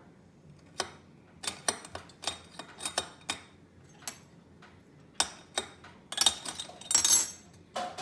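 Stainless steel moka pot parts and a teaspoon handled by a capuchin monkey: a string of sharp metal clicks and clinks, a short pause, then louder clattering and scraping about six and seven seconds in.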